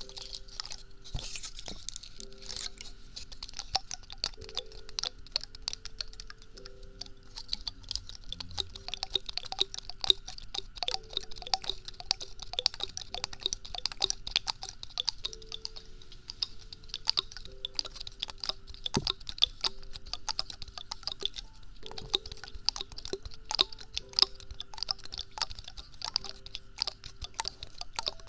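Fast, irregular crackling and clicking from a prop being handled as a sound trigger, with soft background music notes underneath.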